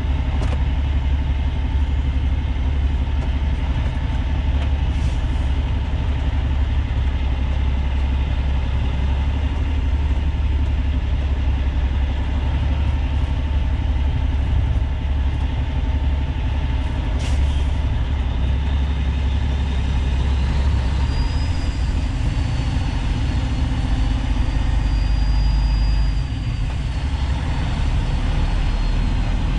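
Semi truck's diesel engine running at low speed, heard from inside the cab, as a steady low rumble; its note drops lower near the end. A faint high wavering whistle comes in over the second half, with a few light clicks.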